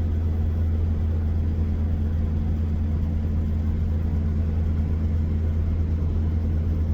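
Steady low drone of a vehicle driving along the road, heard from inside the cabin: engine and road noise hold an even hum with no change in speed.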